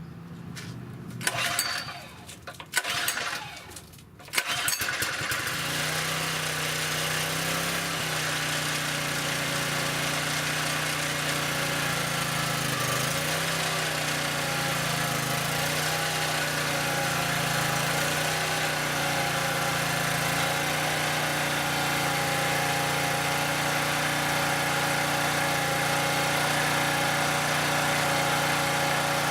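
Southland lawn edger's small gas engine pull-started: two pulls, catching on the second, then running steadily. Its speed wavers for several seconds before settling into an even run.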